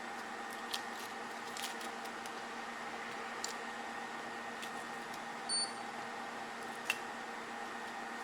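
Steady hum of bench equipment, with a few light clicks of small parts and tools being handled and one short, high electronic beep a little past halfway.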